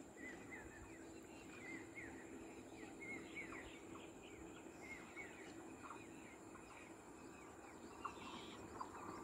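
Birds chirping faintly: a run of short, quick chirps over quiet outdoor background noise.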